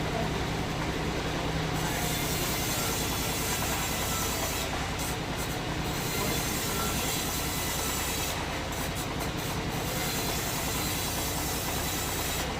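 Sawmill machinery running steadily: a constant mechanical rumble and hiss with a low hum underneath.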